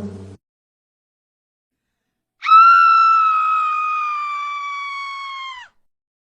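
A meme sound effect of a single high-pitched scream, held for about three seconds and sinking slightly in pitch, then cut off abruptly. The last moment of a guitar music clip ends just before it.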